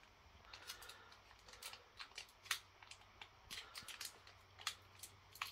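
Foil wrapper of a Pokémon card booster pack crinkling in a child's fingers as he struggles to tear it open: quiet, irregular sharp crackles.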